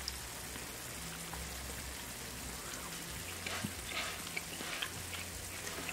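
A few light clicks of a metal fork against a ceramic plate, about three and a half to five seconds in, over a steady low hiss and hum.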